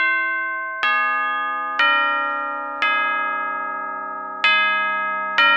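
Intro music of bell-like chimes: six chords struck about a second apart, each ringing and fading before the next.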